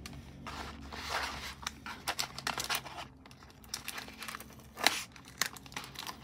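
Clear tape being torn and peeled off a cardboard doll-box insert, with plastic packaging crinkling in irregular rustles. There is one sharp snap near the end.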